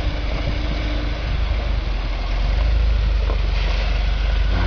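4x4 vehicle's engine running as it drives off-road, a steady low rumble that gets louder about two and a half seconds in.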